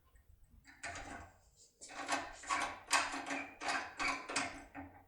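Foil impression pick scraping and clicking inside an Omec cylinder lock as it is rocked up and down under tension, in repeated strokes about two or three a second starting about a second in.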